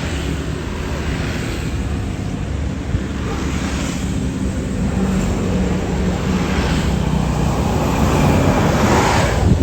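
Large tour bus's diesel engine running close by, growing steadily louder toward the end as the bus comes past.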